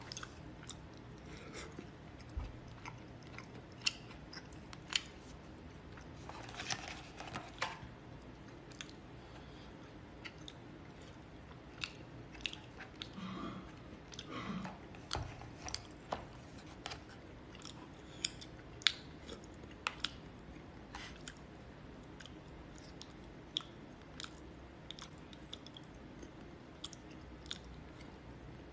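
Close-up eating sounds: chewing and mouth noises as noodles are eaten with chopsticks from a plastic bowl, with scattered light clicks of the chopsticks. Two longer slurps come about a quarter of the way in and again about halfway, the second as the bowl is lifted to the mouth.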